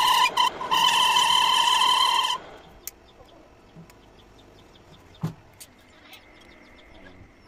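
Metal lathe cutting a steel workpiece, giving a steady high-pitched whine that cuts off abruptly about two seconds in. After that only faint ticks remain, with one short knock a little after the middle.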